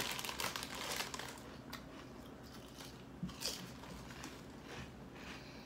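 Potato chips crunching as they are chewed with the mouth closed, densest in the first second, with another sharp crunch about three and a half seconds in and fainter ones after.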